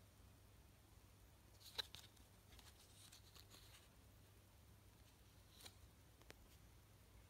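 Near silence over a low steady hum, with faint handling noise: a sharp click about two seconds in, light rustling, and two more soft clicks later, as a plush toy's cardboard tag is turned in the fingers.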